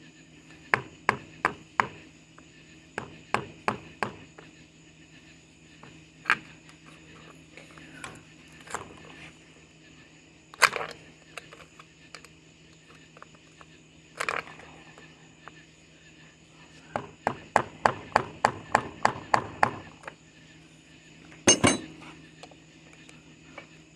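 Hammer striking a screwdriver to drive it in behind a stuck pin in a mower drive wheel, so the pin can be pried out. Sharp taps come in short quick runs, with single harder strikes between, the loudest about 11 s in and another near the end.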